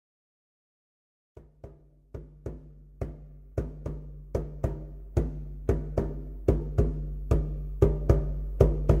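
Song intro: a repeating drum beat over a steady low bass note, coming in about a second and a half in and growing steadily louder.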